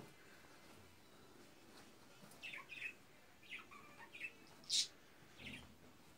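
Agitated pet budgerigar giving about six short, sharp chirps in an uneven run, the loudest a little before five seconds in.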